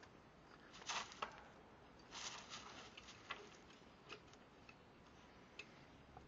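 Faint scrabbling and clicking of a puppy moving about in soil and gravel, with two short scuffles about a second and two seconds in, then a few scattered clicks.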